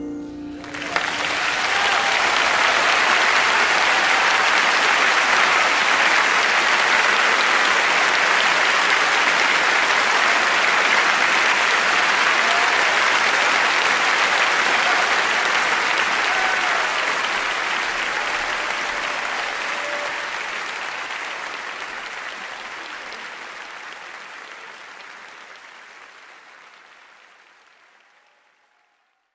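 A large concert-hall audience applauding. The applause swells within the first second as the last piano notes die away, stays loud and even, then fades away gradually over the last dozen seconds.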